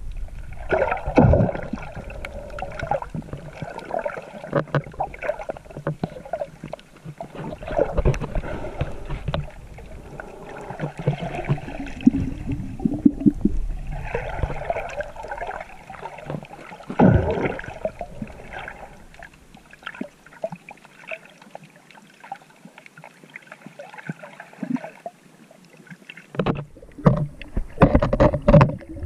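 Muffled sloshing and gurgling of water heard through a GoPro's waterproof housing while swimming, coming in irregular surges. It drops quieter for several seconds past the middle, then grows busier again near the end.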